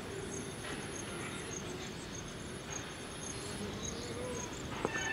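Insects chirping in the grass: a high, steady trill that breaks off now and then, with short chirps repeating about twice a second. There are a couple of sharp clicks near the end.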